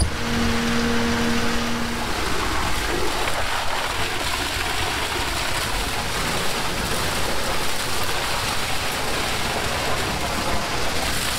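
Ready-mix concrete truck and concrete pumper truck running during a concrete pour: a steady rushing noise of machinery and flowing wet concrete, with a steady hum that stops about two seconds in.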